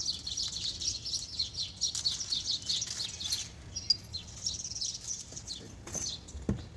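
Small birds chirping and twittering in quick, dense runs of short high calls, with a few soft knocks near the end.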